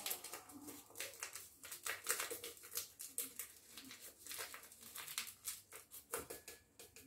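Packet of dry baker's yeast crinkling and rustling as it is shaken and scraped empty into a glass jug, in a faint run of quick, irregular ticks.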